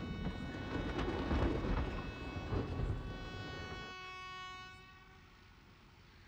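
Train sound effect: a steady horn chord sounding over the low rumble of a moving train. The rumble drops away about four seconds in and the horn fades out soon after.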